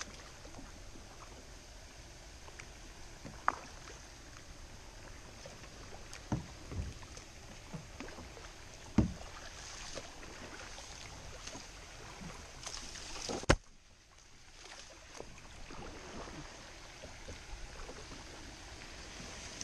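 Kayak paddling on a slow river: a double-bladed paddle dipping and splashing, with water running off the blades, and several sharp knocks spaced through, the loudest near the middle.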